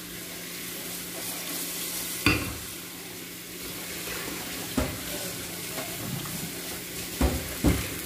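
Pork steak simmering in its soy marinade in a covered pan, a steady sizzling hiss. A few sharp knocks and clinks cut through it, the loudest about two seconds in and two more close together near the end.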